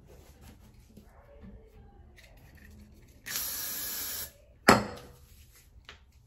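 One steady spray from a handheld spray bottle lasting about a second, followed about half a second later by a single sharp knock.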